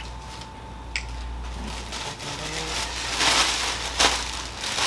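Rustling and crinkling of clothing packaging being handled, with a few sharp clicks, loudest about three seconds in.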